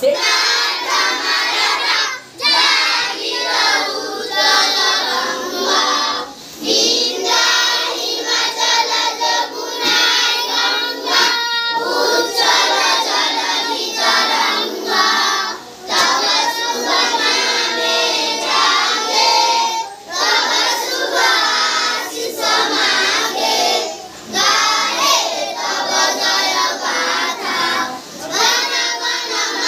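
A group of schoolchildren singing a prayer song together in chorus. They sing in phrases, with a brief pause for breath every few seconds.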